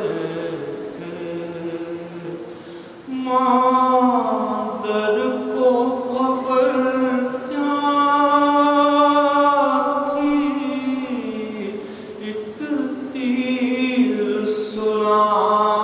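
A man's voice chanting an Urdu elegy for Karbala in a melodic recitation style, long held notes with a wavering pitch sung in phrases with short breaks about three seconds in and near twelve seconds.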